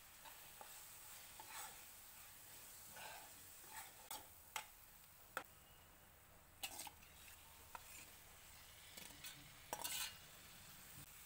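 Steel spatula stirring and scraping spices and onion-tomato masala around a non-stick kadai, with light sizzling and scattered sharp clicks of metal on the pan. Near the end a cluster of clinks and scrapes as marinated prawns are scraped out of a steel bowl into the pan.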